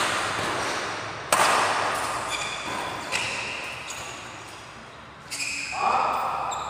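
Badminton rally: a shuttlecock struck by rackets three times, about a second and a half apart, each hit sharp and echoing in the hall. A louder noise follows near the end.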